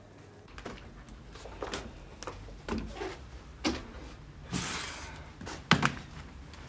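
A door and handling sounds: a run of knocks and clicks, with a short rushing noise about four and a half seconds in and the loudest knock near the end.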